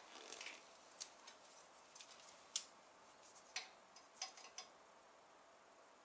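Light clicks and taps of a caliper being handled and set against the chrome exhaust header pipes while measuring them, about six sharp ticks scattered over the first five seconds.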